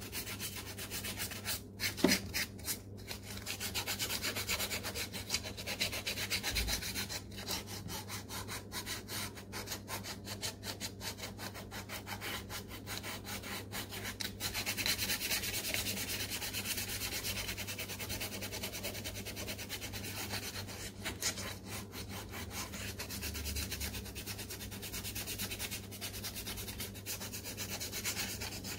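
Sandpaper rubbed by hand over the leather toe box of a sneaker. It makes a continuous run of quick back-and-forth scratching strokes that roughen the surface before painting.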